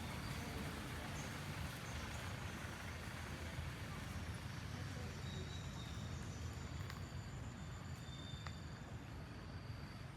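Steady background noise with a low rumble, and faint thin high tones coming in about halfway through.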